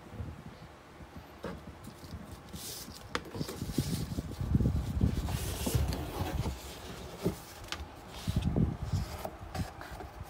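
Hands handling a ribbon-tied cardboard gift box: the ribbon rustling and rubbing as it is untied and slid off, light knocks and scrapes of the box on the table, and the lid coming off near the end.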